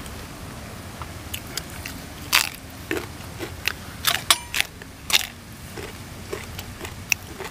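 People eating close to the microphone: chewing, with several short crunching bites of raw vegetables heard as scattered clicks, the loudest about two and a half and four to five seconds in.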